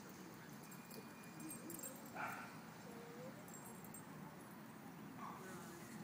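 Quiet outdoor background with a few faint, distant dog sounds. The clearest is a short yip about two seconds in.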